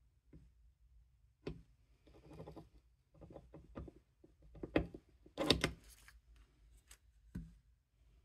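Light knocks and clicks with a short scratching, from a pointed hand tool being pressed into the edge of a wooden box and tools being handled on the bench. The loudest cluster of clicks comes about five and a half seconds in.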